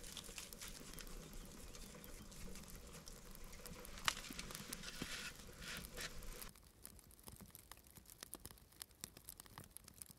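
Rustling of plastic bags and light clatter of food and a wooden cutting board being set out on a snowy floor, with one sharp knock about four seconds in. After about six and a half seconds it drops to faint, irregular ticking.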